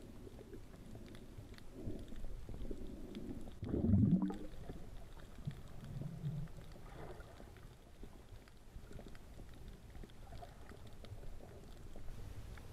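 Underwater sound of a coral reef heard through an action camera: a low, muffled rumble of moving water with faint scattered clicks, and a louder low rush about four seconds in.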